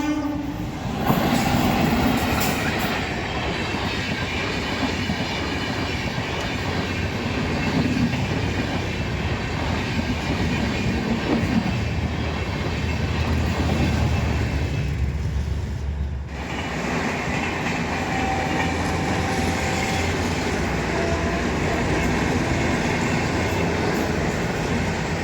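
A train rumbling steadily past over a level crossing, its wheels clattering over the rail joints, with a brief thin squeal about two-thirds through.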